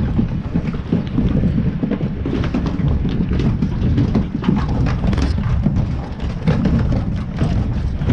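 Low rumble of wind buffeting the microphone. From about two seconds in, the clatter of sheep hooves on the livestock trailer's ribbed metal deck and ramp comes over it.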